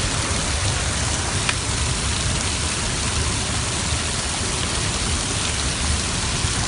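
Steady, dense rushing of water from a large waterfall, with no breaks or single events standing out.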